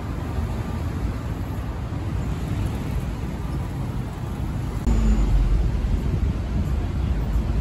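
Road traffic on a busy city avenue: a steady wash of car and engine noise, growing to a louder low rumble about five seconds in.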